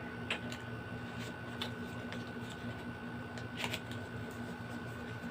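Scattered light clicks and rustles of items being handled, over a steady faint electrical hum.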